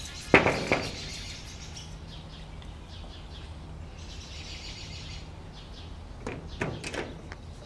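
Two quick knuckle knocks on a window pane, then a few more short clatters near the end, with birds chirping in the background.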